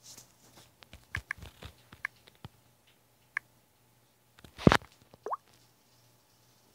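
Light taps on a phone's touchscreen keyboard while typing, a cluster of short clicks followed by a single tap. About two-thirds of the way in comes a louder thump, then a brief rising squeak.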